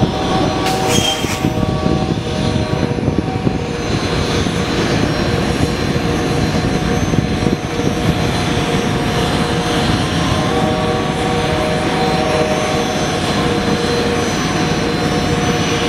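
Jet turbine noise from a parked Boeing 737: a steady whine of several held tones over a loud, even roar, with a brief high hiss about a second in.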